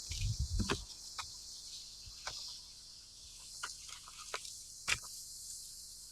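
Slow, irregular crunching footsteps in deep snow, about six steps, over a steady high hiss. A brief low rumble of wind on the microphone comes in the first second.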